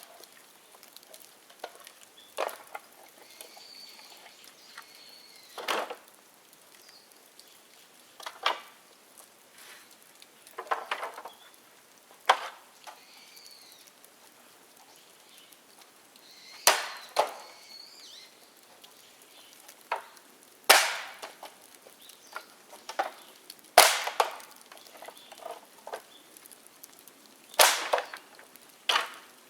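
Dead bamboo burning in an open bonfire, giving loud sharp cracks every few seconds as the hollow culms burst in the heat, over a low crackle of the fire.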